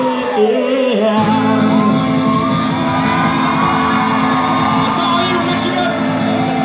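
Live song ending: a sung note falls away, then about a second in the guitars and band hold a steady final chord, with shouts and whoops from the audience.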